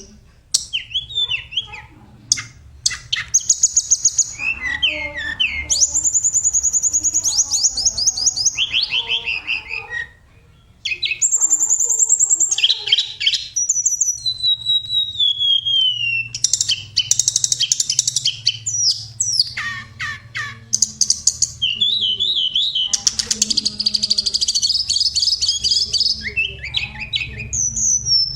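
A tledekan songbird singing a varied song of fast, high-pitched trills and chirp series, almost without a break, with one short pause about ten seconds in.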